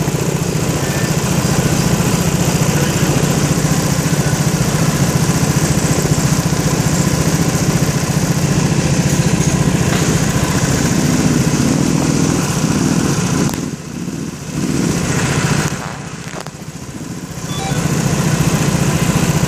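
Small petrol go-kart engines running steadily in the pit lane, a loud constant drone that dips twice near the end.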